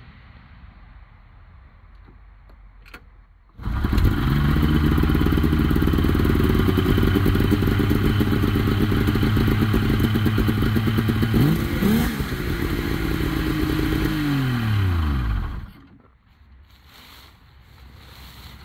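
A Polaris Ultra 680 three-cylinder two-stroke snowmobile engine catches suddenly a few seconds in and runs at a steady idle. About eight seconds later it is revved up once and drops back. It is then shut off and winds down.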